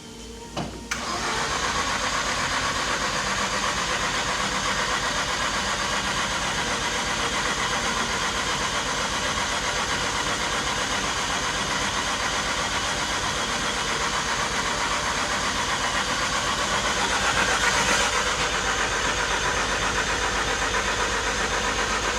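Car engine starting about a second in, then running steadily, swelling slightly about seventeen seconds in.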